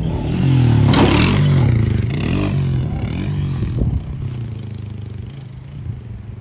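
ATV (four-wheeler) engine revving up and down as the quad passes close by, loudest about a second in, then fading as it rides away across the field, with a brief knock near four seconds.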